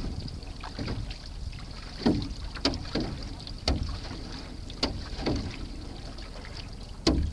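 Single-blade canoe paddle strokes in a C1 Canadian canoe: about six short splashes as the blade catches and pulls through the water, roughly one a second, over wind rumbling on the microphone.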